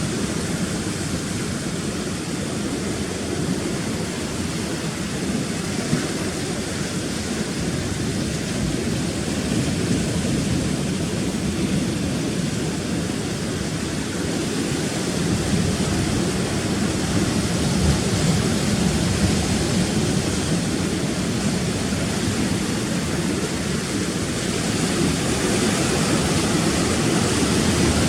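Rough sea surf washing over rocks: a steady rushing noise with no distinct breaks, growing a little louder about halfway through.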